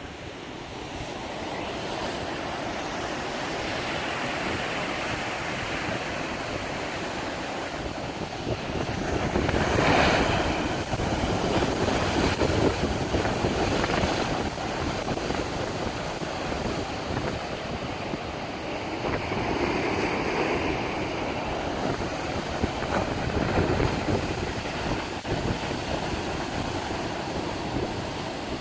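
Sea surf: waves breaking and washing in, swelling and ebbing in surges, loudest about ten seconds in, with wind on the microphone.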